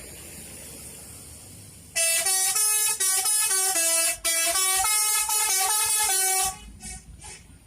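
Bus 'telolet' musical air horn starting about two seconds in and playing a quick tune of stepping notes for about four and a half seconds, over a low engine rumble.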